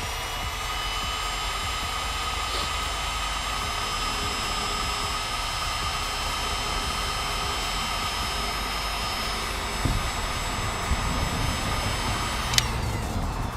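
Electric heat gun running, its fan motor whine rising as it spins up at the start, then holding steady for about twelve seconds before cutting off with a click near the end. It is shrinking heat-shrink tubing over a freshly crimped wire terminal.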